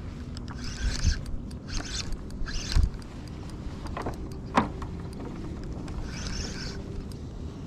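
Handling noises on a kayak while a hooked fish is fought and landed: a few short hissy rustles, two low thumps and a couple of sharp clicks, one with a quick falling squeak.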